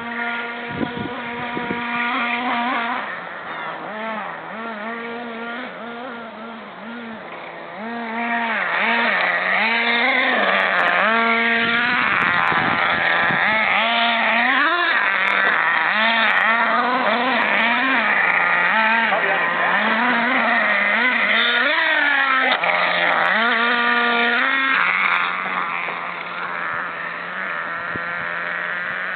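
Small nitro engine of a Volcano SV radio-controlled truck, revving up and down over and over as it is driven, with short blips of throttle between brief idles. It is louder for most of the middle stretch, then settles to a steadier, quieter note near the end.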